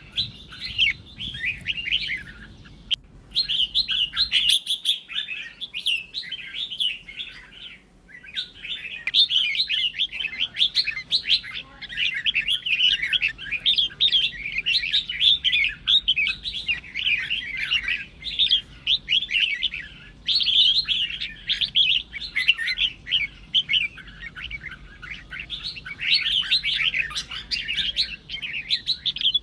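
Red-whiskered bulbul song: dense, fast runs of chirping, warbling notes that barely pause, with short breaks about 3 and 8 seconds in.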